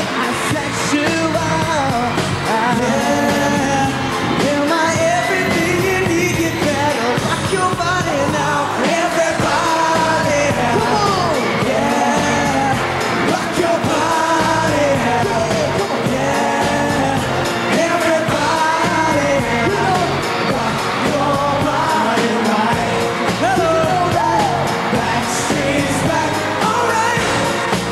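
Male pop vocal group singing live over loud, steady pop music.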